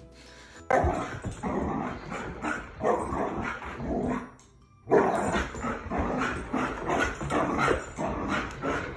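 Dog barking repeatedly in quick runs of barks, breaking off briefly about four seconds in.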